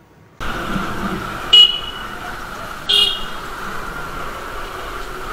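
A motorcycle on the move, its steady engine and road noise starting abruptly about half a second in, with a horn tooting twice, briefly, about a second and a half apart; the first toot is the loudest.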